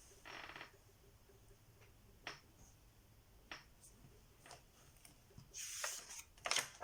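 Faint handling of a picture book in a small room: a few light clicks, then a short rustle near the end.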